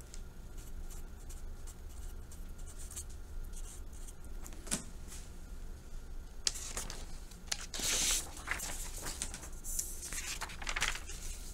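Light pen strokes on paper and a single sharp tick, then, from about halfway through, louder rustling of paper sheets being slid and shifted about.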